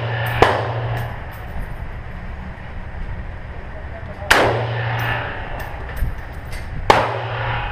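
Rifle fired single shots on an indoor range: three loud cracks a few seconds apart, each with a short ringing echo, with fainter shots from other lanes in between.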